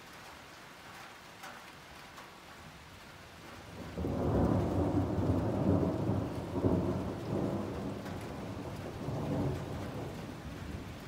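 Steady rain falling, then a roll of thunder breaks in suddenly about four seconds in, a loud low rumble that rolls on for several seconds, fades, and swells again briefly near the end.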